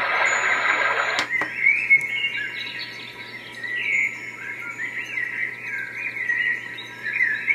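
NURSAL sound machine playing its built-in tracks through its small speaker. A rushing, water-like noise track cuts off with a sharp click about a second in. The birdcall track follows: many short chirps and twittering birdsong over a faint steady hum, with another click near the end as the track changes.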